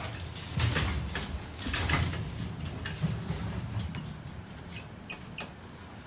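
Shopping cart rolling and rattling over a tile floor, with a few sharp clicks and knocks; the rumble dies away about four seconds in.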